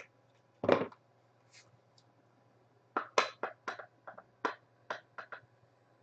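A small white cardboard box of trading cards being opened and handled: a brief scrape or rustle about a second in, then a quick run of short sharp clicks and snaps as the cards are taken out.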